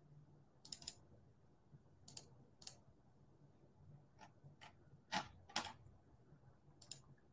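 Near silence with about eight small sharp clicks scattered irregularly, the loudest a pair about five seconds in.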